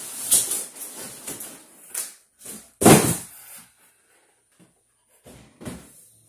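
Cardboard scraping and rustling as a boxed toy rifle slides out of a large shipping carton, then one loud thump about three seconds in and a few softer knocks as the boxes are handled and set down on a table.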